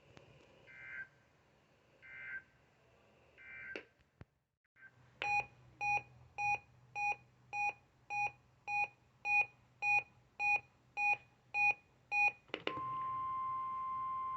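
Three short warbling two-tone data bursts, the EAS end-of-message code, sound after a NOAA Weather Radio test broadcast. After a brief gap comes a run of about thirteen electronic beeps, roughly two a second. Near the end the steady 1050 Hz NOAA Weather Radio warning alarm tone starts.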